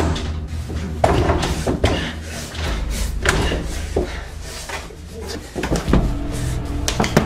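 A series of sharp knocks and thumps over a low steady drone, ending with a door slammed shut about seven seconds in.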